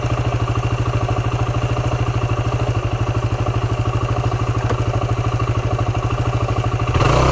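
Yamaha WR250 single-cylinder four-stroke dirt bike engine idling with a steady, even beat. About seven seconds in it grows louder as the bike begins to pull away.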